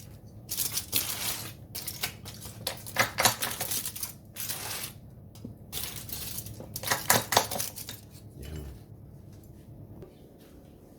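Metal utensils clinking and scraping against dishes and the grill in several irregular bursts, as food is handled and served. The clatter dies down after about eight seconds.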